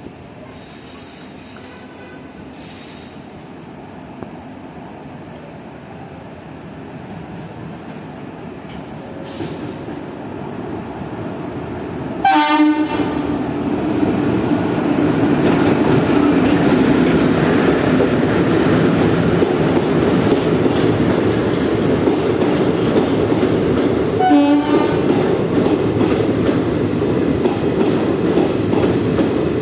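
Aranyak Superfast Express approaching and running in, growing louder from about a third of the way in. The locomotive horn sounds twice, briefly, about 12 s and 24 s in, then the coaches run by with a steady rumble and wheel clatter over the track.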